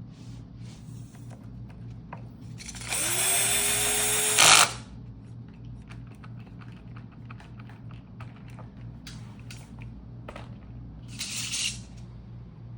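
Power drill run once, about three seconds in: its motor spins up with a rising whine, runs steadily for about a second and a half, and is loudest just before it stops.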